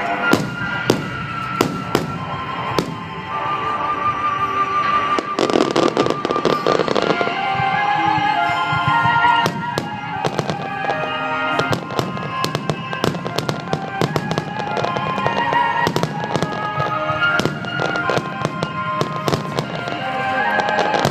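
Fireworks shells bursting in a rapid, irregular string of sharp reports, coming thicker in the second half, over music with a sustained melody.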